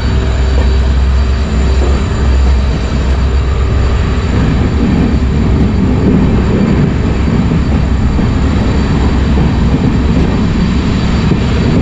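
Passenger train running at speed: the steady rush of wind and rail running noise, heard from outside the side of the coach.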